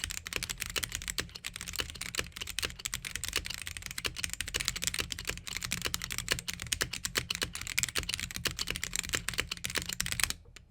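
Fast continuous typing on a Gamakay (Womier) K87 tenkeyless mechanical keyboard with stock Gateron Yellow linear switches, a dense run of keystroke clacks that stops abruptly near the end.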